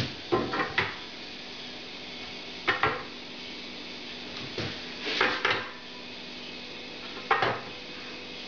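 A long spirit level being set down and shifted on a bare bench-top board: short knocks and clatters in five small clusters.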